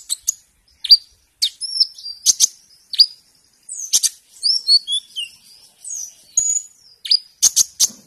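Male purple-throated sunbird singing: a rapid series of high, sharp chirps and slurred notes, with a busier twittering run in the middle and a burst of quick clipped notes near the end.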